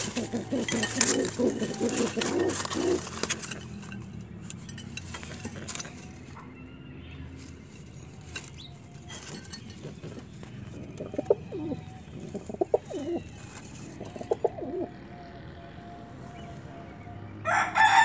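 Pigeons cooing low and pulsing at the nest pots, with scattered clicks and rustles. Near the end a rooster crows loudly, its call falling in pitch as it trails off.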